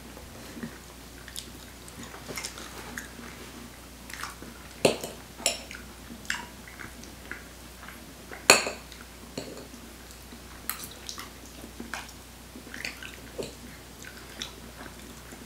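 Forks clinking and scraping on ceramic plates, with quiet chewing, as two people eat durian: scattered light clicks, the loudest about eight and a half seconds in.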